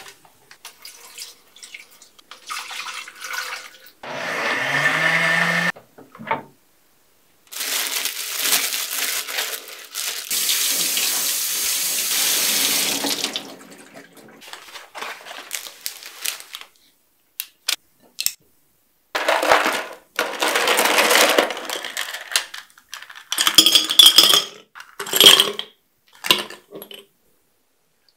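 Kitchen prep sounds. A countertop blender motor runs for about two seconds. Later, a tap runs in long rushes while green grapes are rinsed in a stainless steel colander, with scattered clicks and knocks near the end.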